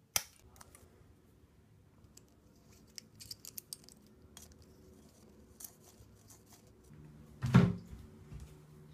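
Scissors snipping the plastic nozzle of a silicone caulk tube, one sharp snip right at the start, followed by faint handling clicks. A louder thump comes near the end.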